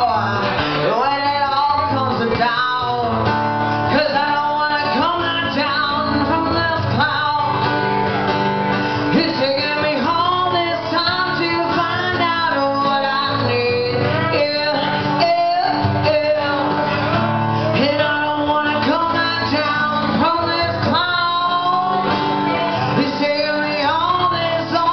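Live band playing a song at full volume, with guitar to the fore.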